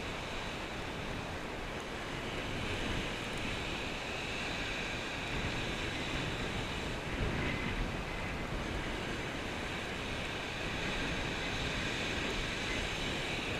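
Surf washing on a shingle beach with wind blowing over the microphone: a steady rushing noise that swells slightly about halfway through.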